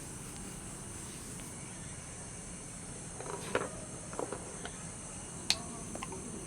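Steady night-time nature ambience, an even high hiss with a high chirring band, with a few soft clicks and taps from about halfway in, the sharpest a single click about two-thirds through.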